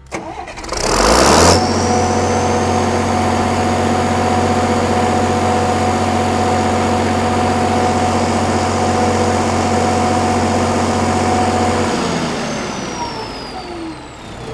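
Cummins 6BT 5.9 L inline-six turbo diesel on an 80 kW Kohler generator set cranking and catching about a second in. It then runs at a steady constant speed with a high turbocharger whine. About twelve seconds in it shuts down, and the engine and turbo whine wind down in pitch.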